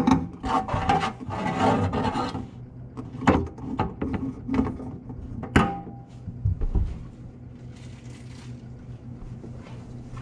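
Handling noise as a kitchen faucet's pipe is dropped into place: a scraping, rubbing stretch in the first couple of seconds, then a few sharp knocks and clunks and some low thuds.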